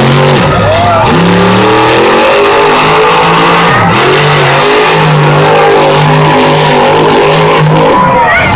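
Monster truck engine revving hard while the truck drives through the dirt arena, very loud, its pitch climbing and falling again and again and held high for a few seconds in the middle.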